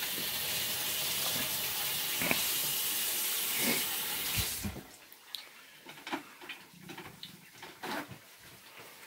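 Kitchen sink faucet running as hands are washed under it, shut off abruptly about halfway through; afterwards only a few faint light clicks.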